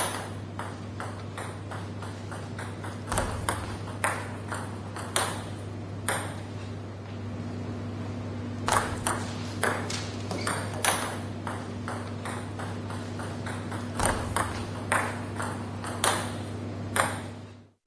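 Table tennis ball being served over and over in a fast, long topspin service: sharp clicks of the rubber racket striking the ball and the ball bouncing on the table, a few every second or two. A steady low hum runs underneath.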